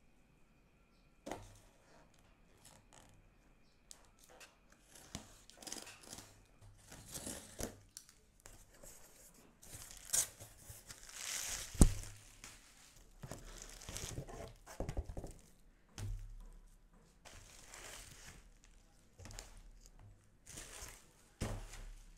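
Packing tape being peeled and torn off a cardboard shipping box and the flaps opened, in repeated bursts of tearing and rustling, with one sharp knock about halfway through.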